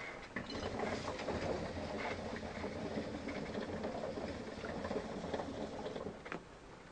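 Water bubbling in a Mia Lounge Junior hookah's base as a long draw is pulled through the hose. It is a steady, crackly gurgle that stops suddenly near the end when the draw ends.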